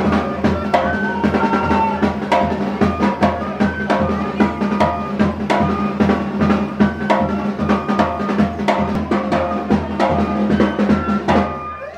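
Drum-led masquerade dance music: fast, steady bass drum and snare beats under a high melody of held notes. It stops abruptly just before the end.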